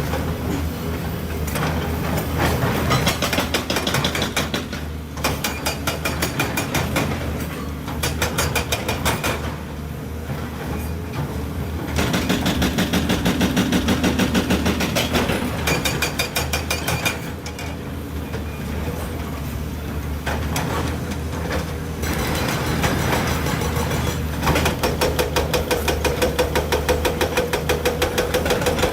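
Hydraulic excavator's diesel engine running under load, with a fast, regular clatter of about four to five beats a second that comes and goes, and a steady whine near the end.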